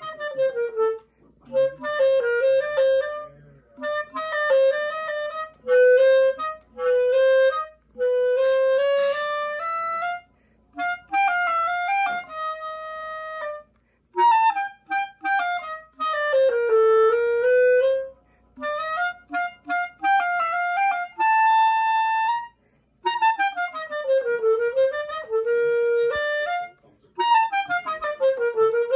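Solo woodwind playing a slow melody one note at a time, in short phrases with brief pauses between them and stepwise runs up and down.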